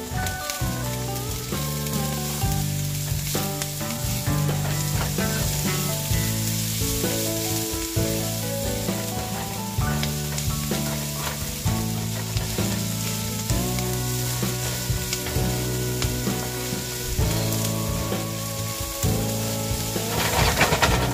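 Diced onion and julienned ginger sizzling as they fry in oil in a nonstick frying pan, stirred with a silicone spatula, with soft background music underneath. The stirring and sizzle get louder near the end.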